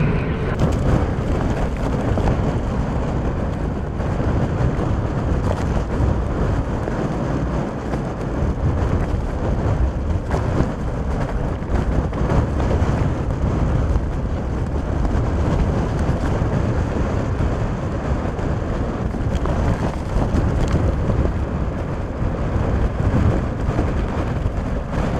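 Thunderstorm outflow winds of about 60 mph blowing hard against a vehicle and the microphone: a loud, steady rushing noise, heaviest in the low end, that never lets up.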